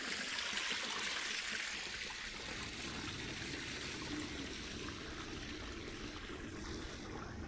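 Steady rushing and trickling of running water, like a small mountain stream flowing over rocks.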